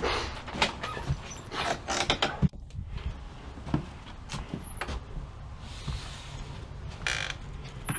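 A house's front door being opened and walked through: irregular clicks and knocks from the latch and footsteps, with brief high squeaks from the door.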